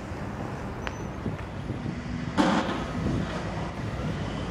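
Heritage electric tram running along its rails: a steady low rumble of wheels and motors that grows slowly louder, with wind on the microphone. A short, loud rush of noise comes about halfway through.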